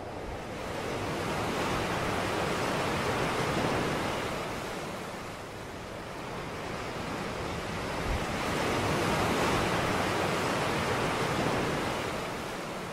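Ocean surf washing onto a beach: a steady rushing noise that swells, eases off about halfway, and swells again before falling back near the end.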